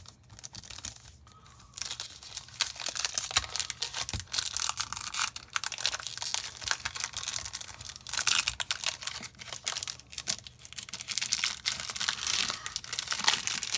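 Yu-Gi-Oh booster pack's foil wrapper being crinkled and torn open, a dense crackling that starts about two seconds in.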